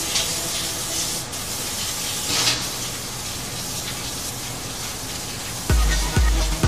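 Hissing spray at the hot dies of a forging press, with two louder spray bursts about two seconds apart over a steady hiss. Near the end a music track with a heavy bass beat of about two thumps a second comes in and is the loudest sound.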